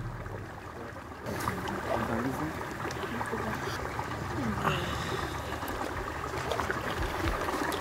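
Hot-spring water splashing and trickling in a cement bathing tub as a bather climbs out, over steady wind noise.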